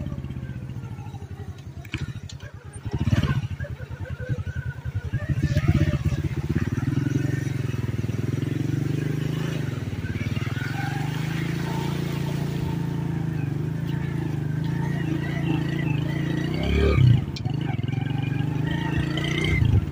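Motorcycle engine running steadily as the bike rides a dirt track and fords a shallow stream; the engine eases off about two seconds in, then picks up again. A sharp thump sounds near the end.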